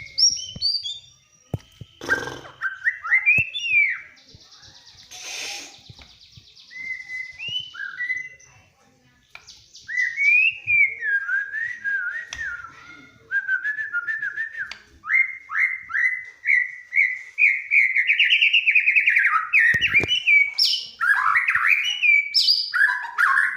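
White-rumped shama singing a long, varied run of whistled phrases with some harsh notes. Through the second half it repeats quick rising notes, several a second, louder toward the end.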